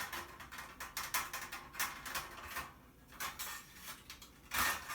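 Screwdriver working screws out of a Sony TA-5650 amplifier's sheet-metal chassis: a string of small, irregular metallic clicks and scrapes, with a louder clink near the end.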